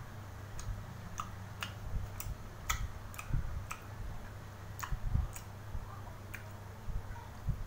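Close-up chewing of fish cake: sharp, wet mouth clicks and smacks at irregular intervals, about nine in all, with a few dull low thumps and a steady low hum underneath.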